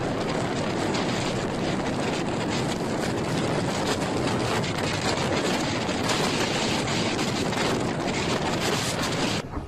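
Blizzard wind blowing hard across the microphone: a steady rushing noise that cuts off abruptly just before the end.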